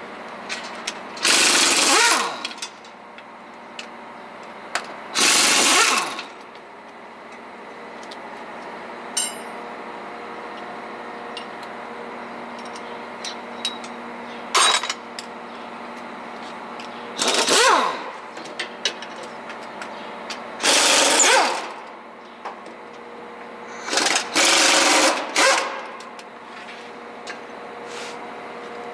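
Pneumatic impact wrench hammering bolts loose on a truck gearbox, in about seven short bursts of a second or less each. The bolts are coming out to take the gearbox down for a clutch replacement.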